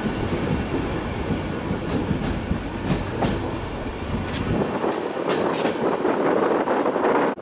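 Passenger coach running slowly over the track, heard through an open window: a low rumble and rattle with wheels clicking over rail joints and points. About four and a half seconds in, the rumble drops away and a louder hiss takes over until the sound cuts off near the end.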